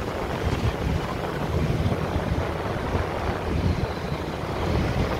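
Busy city road traffic, a steady rumble of passing vehicles, with wind buffeting the microphone.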